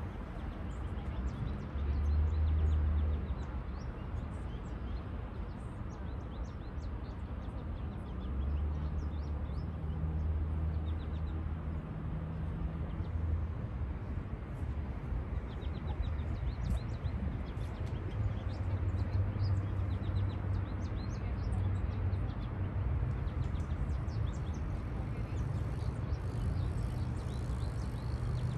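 Outdoor spring ambience: small birds chirping now and then over a low rumble that swells and fades several times.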